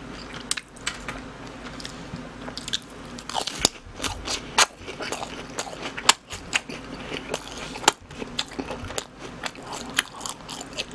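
Close-miked chewing of fried cheese balls, one after another: irregular crunching of the crisp crust with wet mouth clicks, the sharpest crunches in the middle of the stretch.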